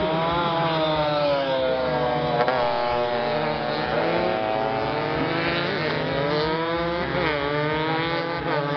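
Racing motorcycle engines revving hard around a tight circuit, several bikes heard at once. Their pitch climbs through the gears and drops off again a few times, going into and out of corners.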